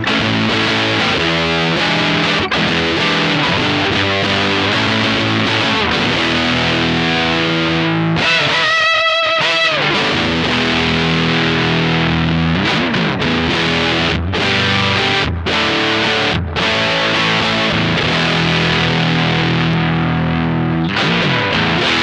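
Stratocaster electric guitar played through a Silver Keg fuzz pedal: heavily distorted chords and riffs, with a high held note wavering with vibrato about eight seconds in and a few short breaks between phrases.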